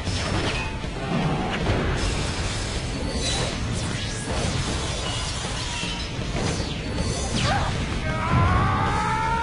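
Cartoon fight soundtrack: action music under repeated crashes, shattering debris and whooshes, with a rising whine near the end.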